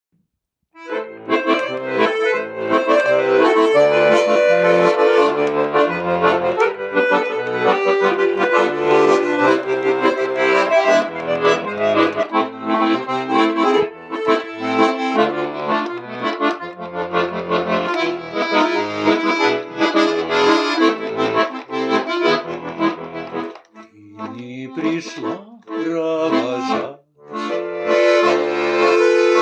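Bayan (Russian button accordion) playing an instrumental introduction: a melody over bass notes and chords, with two brief pauses near the end.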